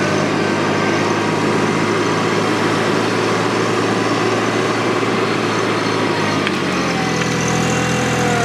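TYM T264 compact tractor's diesel engine running steadily as the tractor drives across the field. About six and a half seconds in, the engine note shifts and a falling whine comes in.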